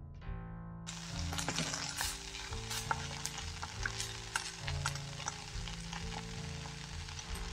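Kale flower and wild garlic greens sizzling and crackling in hot oil in a non-stick pan as they are stir-fried with a wooden spatula; the frying starts about a second in, over steady background music.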